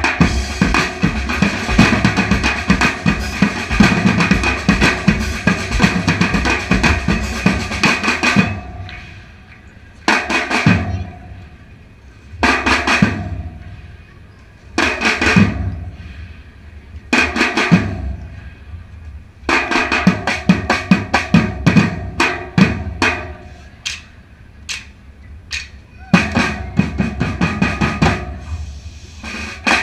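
Percussion ensemble drumming: a dense, steady groove for about eight seconds, then short bursts of hits broken by pauses, with a longer run of rapid strokes about two-thirds of the way through.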